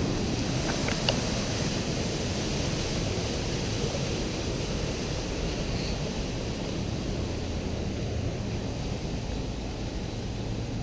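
Steady rush of swollen floodwater runoff pouring past below a bridge, an even noise without a break, with a faint low hum underneath.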